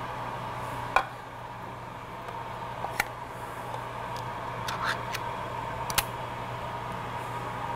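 A few sharp clinks and knocks as emptied metal soup cans are handled and set down on a kitchen countertop, the loudest about a second in, over a steady low hum.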